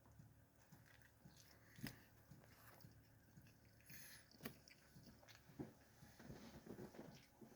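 Faint close-miked chewing and biting of a crunchy barbecue chicken sandwich, with a few sharp crunches and a run of soft chewing near the end.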